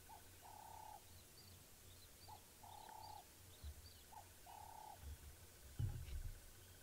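A dove cooing: a short note followed by a longer held note, repeated about every two seconds. Faint high bird chirps sound behind it, and a brief low rumble comes near the end.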